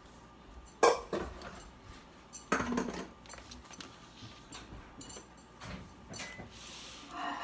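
Kitchen clatter: a sharp knock about a second in, a second clatter at about two and a half seconds, then a few lighter clicks.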